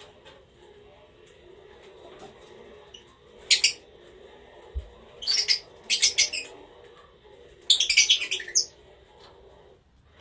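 Small pet parrots giving four short spells of shrill, high chirping. The longest spell comes near the end. A single dull thump sounds just before the middle.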